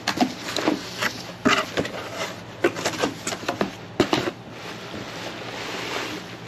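Cardboard shipping box being torn open by hand: a run of irregular rips, rustles and crinkles of cardboard and packing paper, turning into a smoother rustle near the end.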